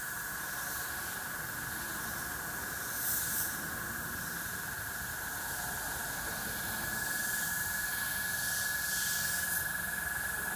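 Airbrush spraying paint with a steady hiss of compressed air, with short louder puffs about three seconds in and again near the end.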